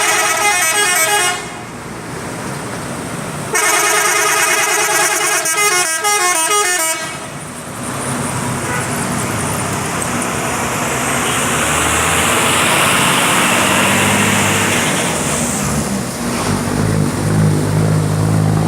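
Dewi Sri bus's 'telolet' horn, a multi-tone musical air horn, playing a short run of notes that stops about a second in, then a longer tune of about three seconds. After that come a steady rush of bus and road noise and, near the end, a low engine drone.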